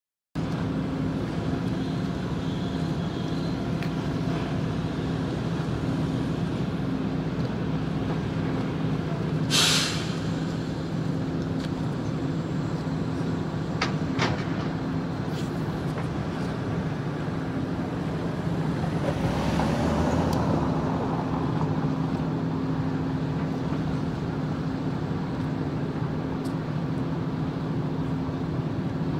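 Steady low mechanical hum of engine or machinery, with a short loud hiss about ten seconds in and a few sharp clicks.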